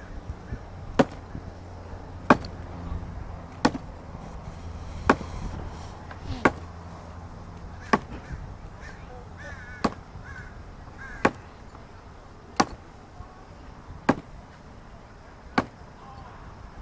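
Wood being chopped: about eleven sharp chopping strikes at a steady pace, roughly one every second and a half.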